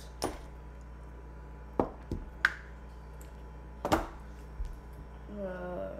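Several separate knocks and clicks as plastic RC car parts and wire connectors are handled on a table.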